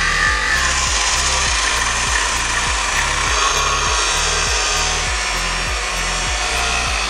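Angle grinder cutting through a steel U-bolt on a truck axle: a steady, high grinding whine with hiss. Background music with a steady beat underneath.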